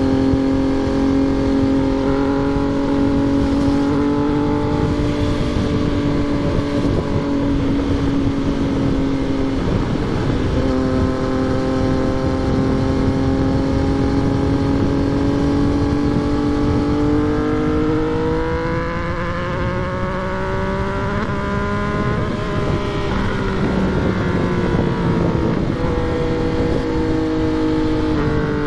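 Yamaha MT-09 motorcycle's three-cylinder engine under way, held at steady revs with a brief break about ten seconds in. Past halfway it rises in pitch as the bike accelerates, then drops back as the throttle comes off, over a rough rush of wind noise.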